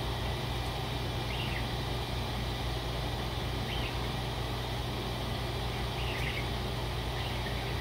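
A few short, faint budgerigar chirps, spread out, over a steady low hum.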